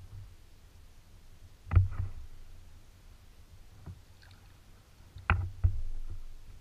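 Kayak paddling: a kayak paddle knocks against the kayak's hull several times, the loudest knocks about two seconds and five seconds in, each followed by a brief swish of water from the stroke.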